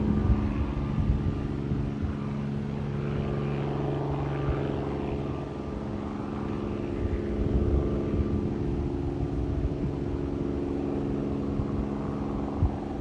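Bell 47 helicopter in flight, its piston engine and rotor droning steadily, fading slightly over the first few seconds.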